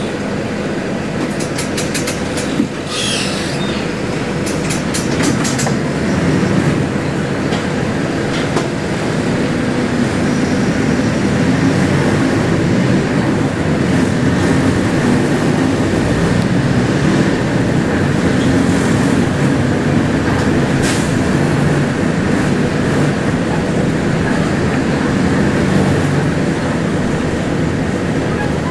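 Diesel engine of a Mercedes-Benz OF-1721L Euro 5 bus running loud with a steady low drone. The drone grows louder about ten seconds in and then holds. Scattered clicks and rattles come in the first few seconds.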